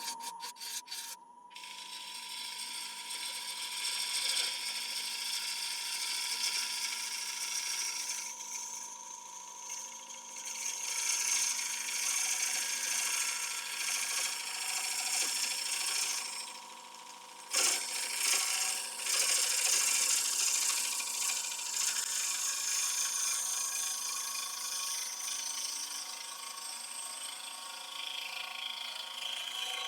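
Bowl gouge cutting the underside of a damson bowl spinning on a wood lathe: a steady hiss of the cut over the lathe's steady whine. The cut eases off briefly about 16 seconds in, then starts again sharply.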